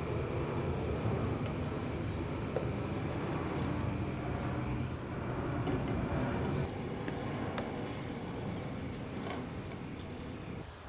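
Gas stove burner running with a steady low rumble, with a few light clicks; the rumble drops a little about two thirds of the way through.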